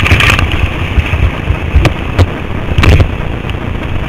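Whitewater rapids rushing around a raft, with water slapping and splashing against the raft and camera in several sharp bursts over a low, uneven rumble.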